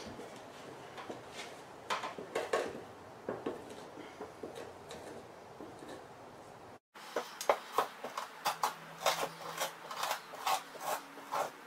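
The dull back of a two-handled fleshing knife is pushed in strokes down a beaver pelt on a fleshing board, scraping off flesh and fat. The strokes are scattered at first. After a short silence about two-thirds in, a quicker run follows at about two to three scrapes a second.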